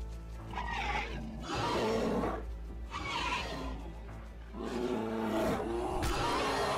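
Snarling and roaring of a fight between large predators, dramatized bear dogs and an entelodont, in about four bursts of a second or so each, over background music.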